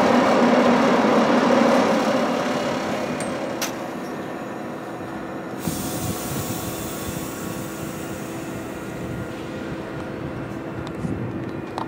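Metra commuter train coming to rest at a station platform. Its running noise dies down over the first few seconds, then a steady low hum runs on as it stands.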